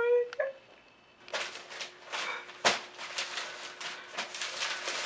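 A man's short whimpering cry at the very start, then, from about a second and a half in, continuous crackly rustling with a few sharper crackles, growing louder toward the end.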